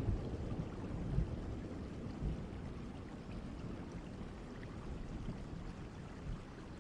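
Steady rain falling, with the low rumble of a thunder roll dying away over the first couple of seconds.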